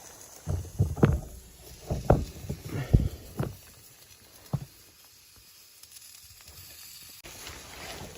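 A run of dull thumps and knocks over a few seconds, then quieter rustling near the end.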